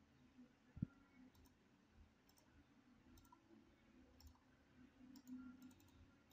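Near silence with a few faint computer mouse clicks, and one short low thump just under a second in.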